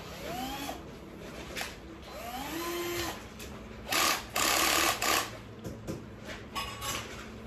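Cordless drill run in short trigger pulls: two brief whines that rise in pitch and fall away, then a couple of louder full-speed bursts of about a second, with a few short blips after.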